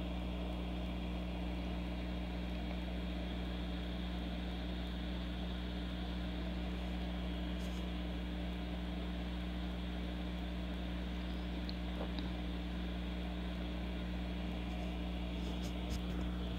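Hot air rework station blowing steadily through its nozzle at a low airflow setting (3), a constant rushing of air with a steady low hum.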